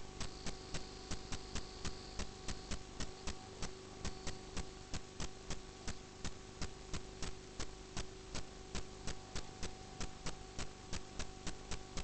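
Rapid, evenly spaced clicking, about four clicks a second, over a steady electrical hum.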